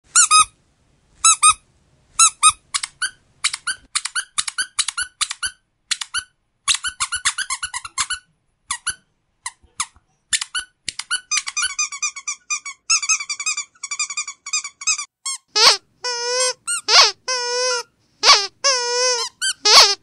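Squeaky dog toy squeezed over and over: many short, high squeaks in quick clusters, turning into faster runs about halfway, then longer squeaks with a lower, wobbling pitch near the end.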